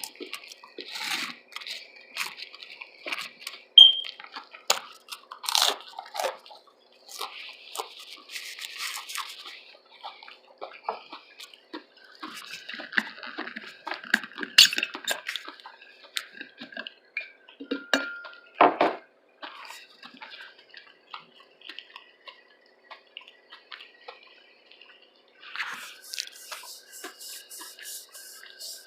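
Close-miked mouth sounds of someone eating a loaded veggie tuna sub: irregular wet chewing and crunching of bread and raw vegetables, with sharp clicks between bites. A quick run of rasping, rubbing noise begins near the end.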